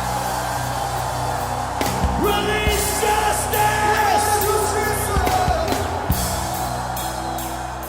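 Live worship band playing sustained chords with drum hits, while voices sing and call out over it.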